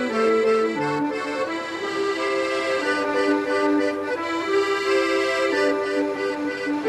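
Background music: a melody of held notes played on an accordion.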